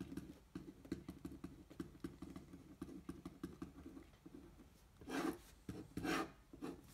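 Marker pen writing on a sheet of paper: a run of short, quick scratchy strokes as letters are formed, then two longer, louder strokes about five and six seconds in as lines are drawn.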